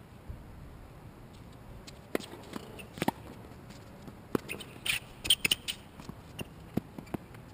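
Tennis rally on an outdoor hard court: sharp knocks of the ball off racket strings and court surface, mixed with scraping shoe scuffs as the player runs, with a dense burst of sharp sounds about five seconds in.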